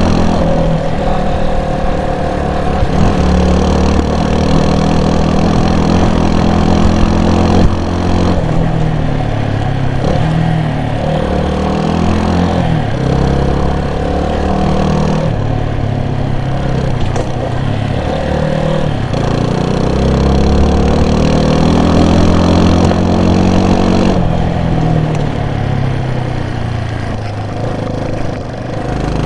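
Vehicle engine running under way on a forest road, its revs repeatedly climbing and dropping back as through gear changes, over a steady hiss.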